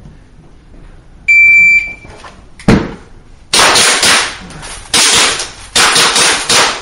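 Electronic shot timer gives its start beep, a single steady high tone lasting about two-thirds of a second. About a second later a pistol fires once, then three quick strings of loud shots follow, echoing in the range.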